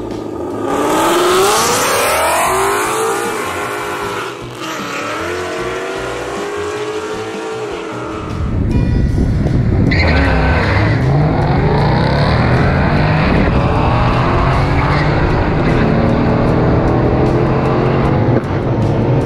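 Ford Mustangs accelerating hard down a drag strip, engines revving up through the gears. Each shift drops the pitch before it climbs again, and there is some tyre squeal. The sound changes sharply about eight seconds in, to a second car's run with a heavy low drone beneath it.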